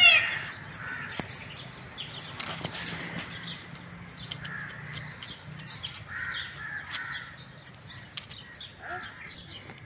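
Faint, scattered short bird calls with soft rustling and a few clicks. The tail of a louder series of repeated calls ends just as it begins.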